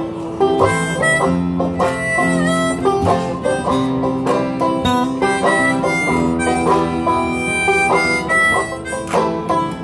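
Instrumental break in an acoustic folk song: a harmonica plays held, bending notes over a picked banjo, a strummed acoustic guitar and a scraped washboard.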